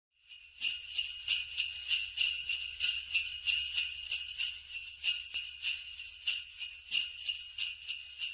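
Jingle bells shaken in a steady rhythm, about three shakes a second, starting about half a second in.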